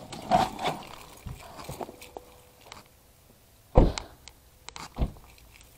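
Rustling and handling noise as someone gets out of a car, then a car door shutting with a loud thump just under four seconds in, and a second, smaller thump about a second later.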